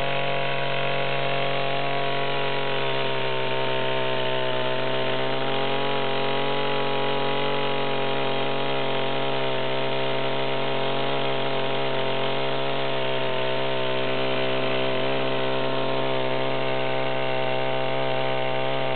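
Stihl two-stroke chainsaw running at high revs and cutting through a dead pine log with a dull chain. The engine note dips and recovers slightly several times as the bar loads in the wood.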